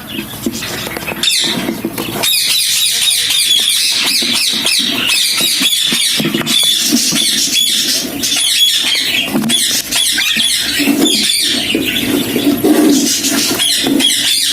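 Budgerigars chattering and warbling: many quick, high chirps and squeaks overlapping without a break.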